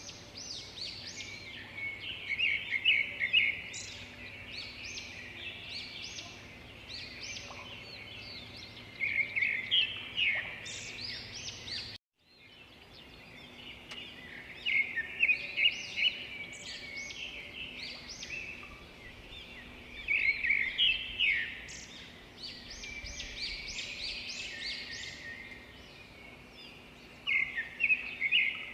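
Birds chirping and singing: many short, high chirps and trills in clusters, over a faint steady background noise, with a brief cut to silence about twelve seconds in.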